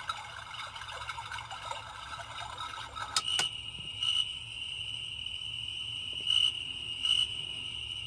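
A star projector night light's built-in speaker plays a recorded running brook. About three seconds in, two sharp button clicks switch it to a recorded night-insect track: a steady high cricket trill with a few louder pulses.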